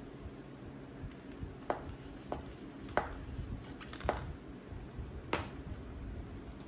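Light metallic clicks and taps as a metal can is pushed into and turned inside a koozie made from a license plate: about five sharp clicks spread over the seconds, over a low steady hum.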